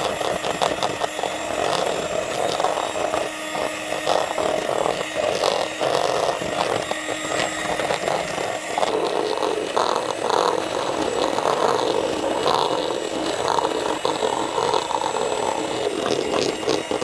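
Electric hand mixer running steadily, its twin wire beaters whipping cream in a stainless steel bowl, with frequent small clicks as the beaters knock against the bowl.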